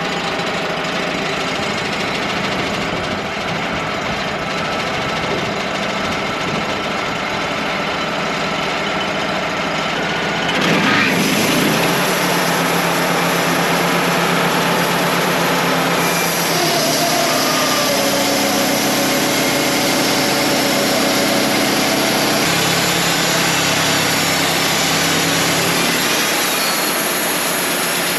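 Wood-Mizer LT35 portable sawmill running, its engine sound steady. About ten seconds in it grows louder and hissier as the band blade is put to work on the black oak log, and it changes again a few seconds later.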